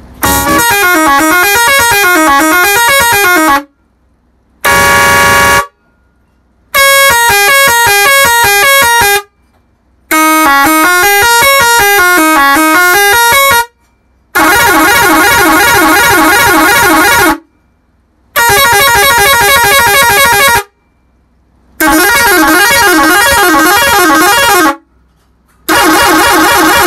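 Bosco six-trumpet air pressure musical horn playing loud tune patterns, its trumpets sounding in quick stepping rising and falling sequences. It plays in eight bursts with short pauses between them.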